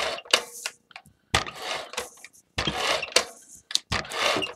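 Handheld adhesive tape gun being drawn across paper in four quick runs of about half a second each, the mechanism whirring as it lays down adhesive.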